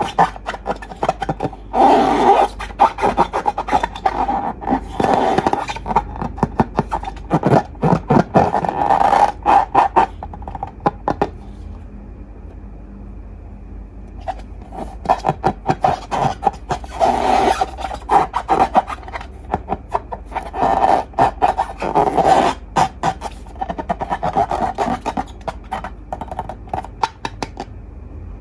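Slime being squished and stretched by hand, with sticky crackling and popping in runs of a few seconds and a short lull about halfway through.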